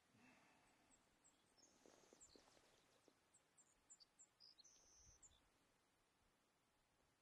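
Faint high bird chirps and two short held whistles, scattered through the first five seconds over near silence.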